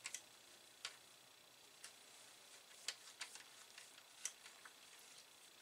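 A scattering of faint, irregular small clicks as a hand tool works metal on a rear port connector of an Amiga 1200 motherboard.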